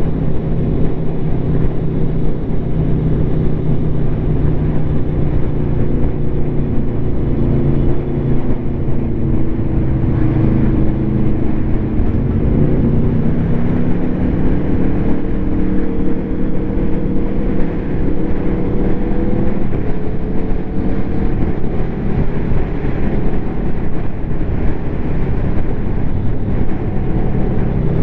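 Aprilia Tuono V4 motorcycle's V4 engine under way through its SC Project SC1-R carbon slip-on exhaust. It holds steady at first, then the revs climb gradually from about twelve seconds in and drop back near twenty seconds.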